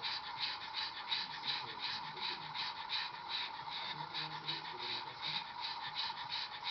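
A pug panting fast and evenly, several short breaths a second: the heavy panting of a dog in the first, opening stage of labour.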